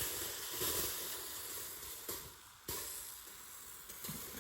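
Potato cooking on the heat, sizzling steadily, with a couple of sharp pops about two seconds in.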